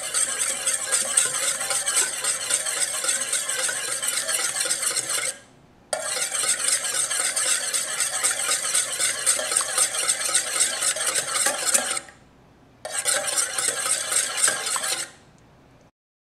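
Wire whisk beating an egg in a stainless steel bowl, the wires rapidly rattling and scraping against the metal. It pauses briefly about five seconds in and again about twelve seconds in, and stops about fifteen seconds in.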